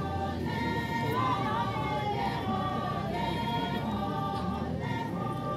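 A group of women singing a traditional folk dance song together, holding long notes in phrases of about a second each with short breaks between them.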